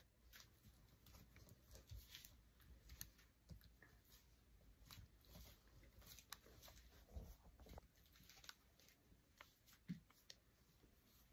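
Near silence: room tone with faint, scattered small clicks and knocks.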